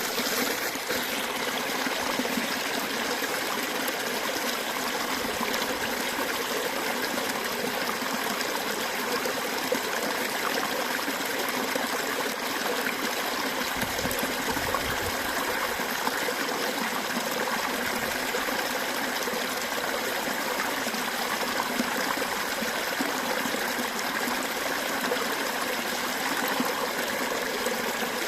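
Running water: a stream flowing and trickling in a steady, even rush, with a brief low rumble about halfway through.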